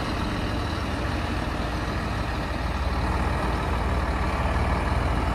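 Scania T-cab tipper lorry's diesel engine running as the lorry pulls away, a steady low rumble.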